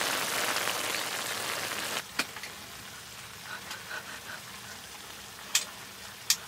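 A pot of spicy galbi stew bubbling hard on an electric pan, a dense steady hiss; about two seconds in it drops to a quieter hiss with a few sharp clicks of utensils against a bowl.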